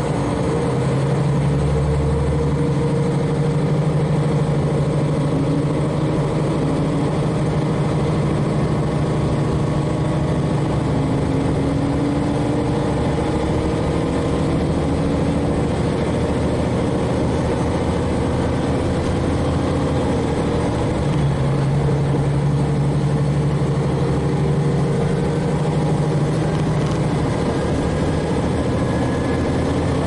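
KiHa 40 diesel railcar under way, heard from on board: its N-DMF13HZI diesel engine runs steadily over the rumble of the wheels on the rails. Fainter tones slowly rise in pitch.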